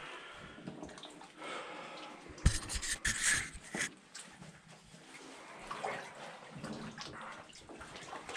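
Deep water sloshing and splashing around a person's legs as they wade through a flooded mine tunnel, with a louder run of splashes about two and a half seconds in.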